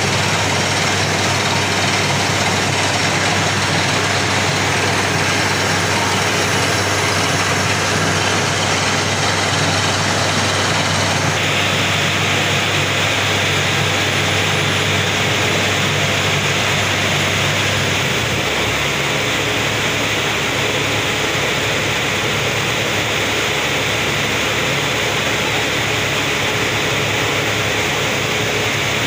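Borewell drilling rig running: a loud, steady machine noise with a low engine hum under it. About two-thirds of the way through the low hum drops away while the rest of the machine noise runs on.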